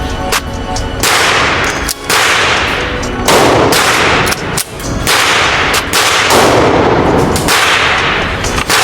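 Handgun shots fired one at a time, roughly a second or so apart, each ringing out with a long echo.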